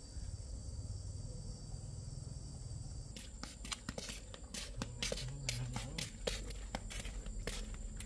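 Insects trilling steadily; from about three seconds in, a run of irregular sharp clicks and scrapes.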